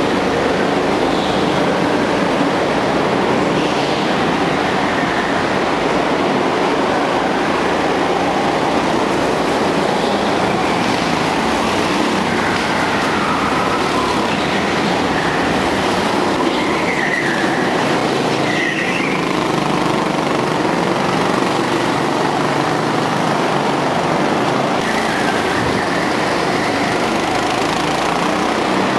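Go-kart engines running and revving as karts lap an indoor track, a steady loud din inside a large hall, with a few brief high squeals about two-thirds of the way through.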